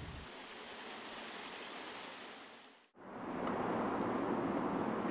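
Steady rush of a waterfall splashing into a pool, fading out just before halfway. After a moment of silence, a fuller, steady rushing outdoor ambience fades in.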